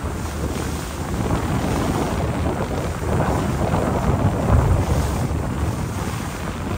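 Wind buffeting the microphone aboard a moving river cruise boat, over the boat's low, steady rumble and the rush of its wake. The wind gusts louder about halfway through.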